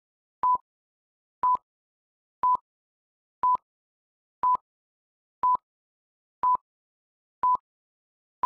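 Film-leader countdown beeps: a short, high, steady beep once a second, each with a faint click at its start and end, marking the numbers as the countdown runs down.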